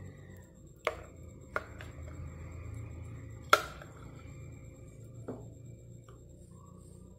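Metal spoon knocking and scraping against a plastic food processor bowl while scooping out cauliflower purée: four sharp knocks, the loudest about halfway through, with soft scraping between them over a steady low hum.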